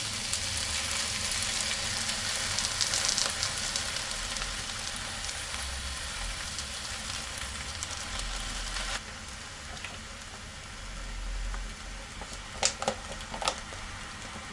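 Food frying and sizzling in a pan, a dense crackling hiss that drops a little in level about two-thirds of the way through, with a few sharp clicks near the end.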